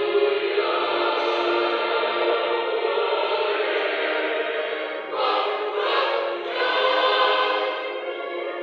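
Church choir of youths and children singing a Kinyarwanda hymn in sustained chords, swelling louder about five seconds in.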